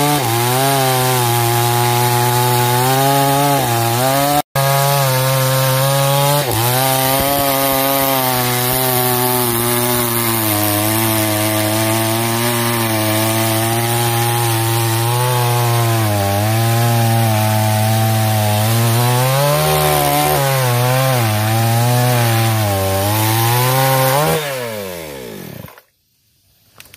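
New NEWWEST chainsaw with a 22-inch bar cutting through a sonokeling (Indian rosewood) log, its two-stroke engine held at high revs under load, the pitch wavering as the chain bites. Near the end the engine winds down and stops as the cut is finished.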